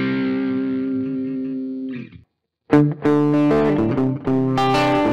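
Les Paul replica electric guitar on a crunch (light overdrive) tone. A held chord rings out and fades, then cuts off about two seconds in, and this take is played with a plastic nut. After a brief silence, a new passage of chords and notes starts with the guitar fitted with a bone nut.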